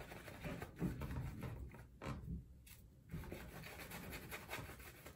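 Badger-hair shaving brush worked over a bearded face, its bristles rubbing and scratching through wet shaving lather in faint, quick, irregular strokes.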